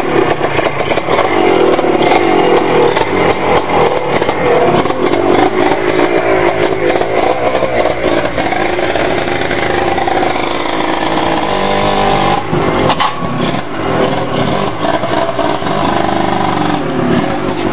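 Yamaha Blaster ATV's two-stroke single-cylinder engine running under way, its pitch rising and falling as the throttle is worked.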